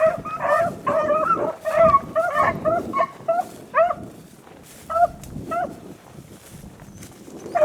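A pack of beagles baying while running a rabbit. Short, pitched barks come close together and overlap for about the first four seconds, then only a few single barks follow.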